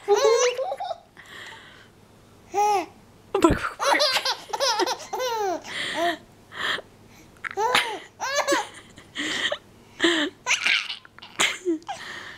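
Baby laughing in a string of short, high peals that rise and fall in pitch, with breathy gasps in between, as her pacifier is pulled out of her mouth. There is a brief knock about three and a half seconds in.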